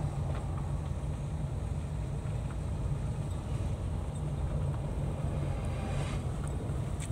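Car driving along an unpaved road, heard from inside the cabin: a steady low rumble of engine and road noise.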